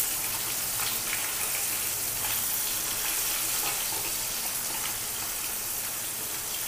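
Small marinated fish shallow-frying in hot oil, a steady sizzle, with a few light scrapes of a metal spatula as the fish are turned.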